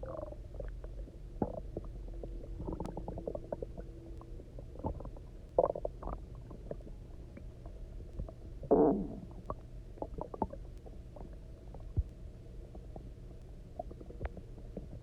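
Empty human stomach growling and gurgling, hungry after a 24-hour fast and full of drunk water: small pops and gurgles over a low drone, a held low growl about three seconds in, and the loudest gurgle, falling in pitch, about nine seconds in.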